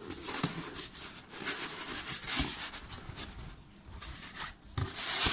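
Packaging rustling and scraping as an ice crusher machine is slid out of its tilted cardboard box, with a few light knocks and the loudest scuffing near the end.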